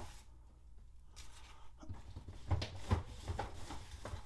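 Handling noise at a workbench: soft rustling, then a quick cluster of light knocks and taps between about two and a half and three and a half seconds in as things are picked up and moved, over a low hum.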